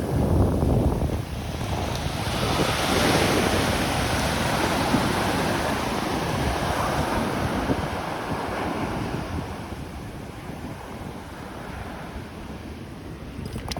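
Ocean surf breaking and washing up the shore, with wind buffeting the microphone. The wash swells about two seconds in and slowly fades.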